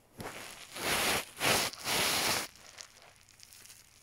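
A cat's tongue rasping over another cat's fur in grooming licks: four strokes in the first two and a half seconds, the middle two loudest.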